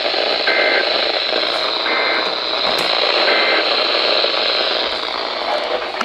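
RadioShack NOAA weather radio playing heavy static, a steady loud hiss through its small speaker. Three short two-tone beeps are heard about a second and a half apart within the hiss.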